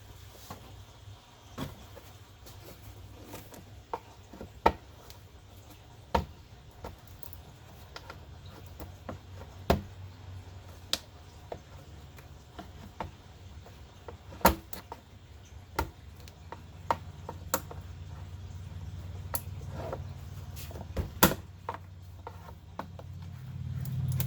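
Hand-tool work on a car's front end: scattered sharp clicks and knocks, roughly one a second and irregular, as fasteners and parts are worked loose, over a low steady hum.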